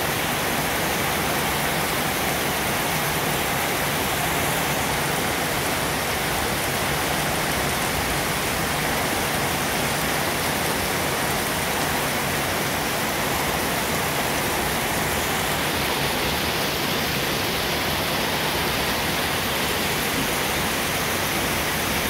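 Steady rain pouring down, an even hiss that does not let up.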